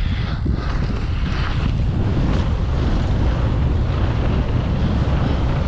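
Wind buffeting the microphone of a rider-mounted camera as a mountain bike rolls fast down a dirt trail, with a steady low rumble from the tyres on the loose dirt.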